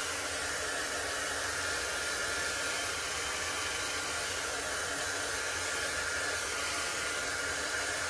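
Small handheld craft heat tool blowing a steady rush of hot air, with a thin high whine from its fan, drying freshly applied chalk paste.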